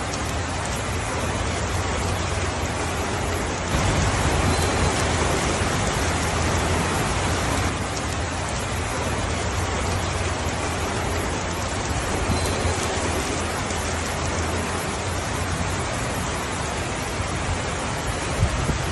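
Steady rainfall, an even hiss of falling rain that swells a little louder about four seconds in for a few seconds before settling back.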